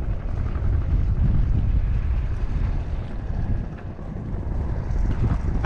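Wind buffeting the microphone: a loud, low, gusting rumble.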